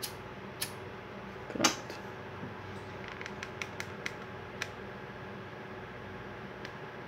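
Light clicks and taps as a lighter and a hot glue gun are handled at a craft table, with one louder knock about a second and a half in, over a steady low hum.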